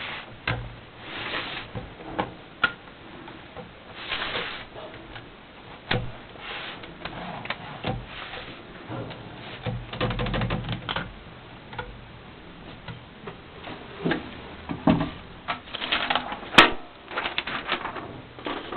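1968 Swiss-made Hermes Media 3 manual typewriter being worked by hand: irregular clacks of the keys and mechanism, with a few short rasping sweeps and a quicker run of clacks near the end.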